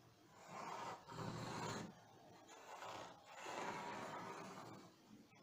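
Pencil drawn along a long ruler across pattern paper, scratching in a few long strokes of about a second or more each.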